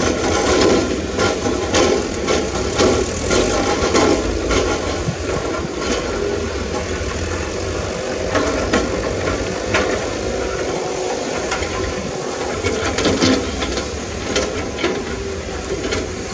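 Engines of heavy earthmoving equipment (excavator and dump trucks) running steadily, with scattered clanks and knocks throughout.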